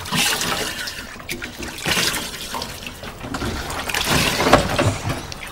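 Water splashing and sloshing in an enamel washbowl as a man washes his face in it, in irregular splashes, the loudest a little over four seconds in.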